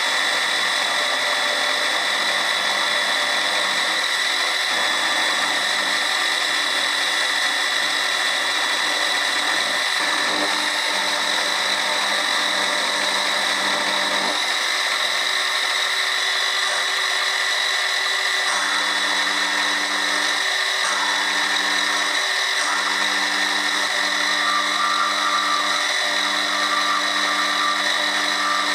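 Chester benchtop milling machine running an end mill through a row of mild steel bars held in a vise: a steady high whine with the sound of cutting. About 18 seconds in a lower hum joins, breaking off briefly twice.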